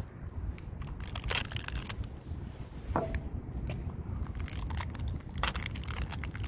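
Crinkling of a chocolate bar's wrapper and crackly biting into the bar, heard as sharp clicks and rustles over a steady low wind rumble on the microphone. A short squeak comes about three seconds in.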